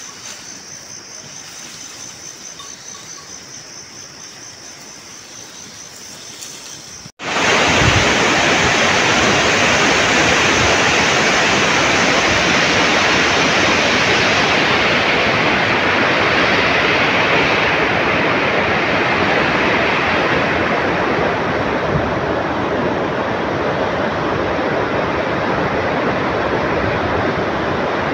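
Insects chirring in a high, even pulse. About seven seconds in this cuts off abruptly and a loud, steady rushing noise takes over, its hiss softening somewhat later on.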